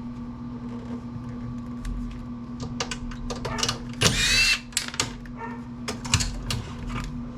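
Hand tools working on the metal chassis of an amplifier being taken apart: scattered light metallic clicks and clinks, with a brief squeak about four seconds in, over a steady low hum.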